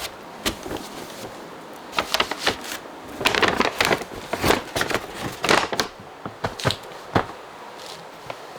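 Irregular knocks, clicks and rustling of fruit and packing material being handled during pear sorting, busiest in the middle stretch.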